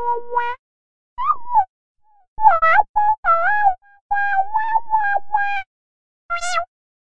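Digitalker-style synthetic electronic voice effect: buzzy, robotic pitched tones in short bursts that jump and warble in pitch, separated by brief silent gaps.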